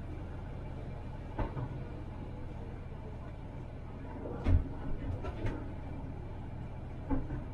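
Tram running along the track with a steady low rumble, broken by sharp knocks: one about a second and a half in, a quick cluster around the middle, and one more near the end.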